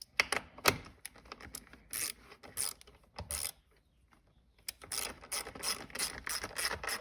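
A couple of sharp knocks in the first second, then a fast run of clicks from a hand ratchet wrench being worked back and forth, snugging down nuts.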